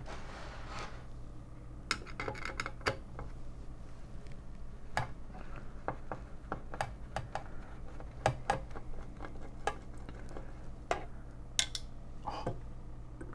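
Scattered metallic clicks and clinks of a screwdriver and screws against an AT power supply's steel case as its screws are backed out to free the circuit board, over a steady low hum.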